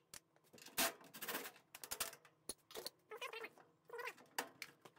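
Faint clicks and knocks of hands handling the washer's plastic console panel, with two short pitched sounds about three seconds in.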